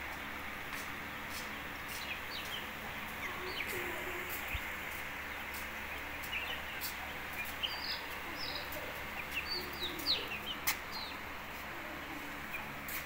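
Half-grown Aseel chicks cheeping in short, high chirps, busiest in the second half, while beaks tap sharply on the concrete as they peck at scattered rice. A steady hiss runs underneath.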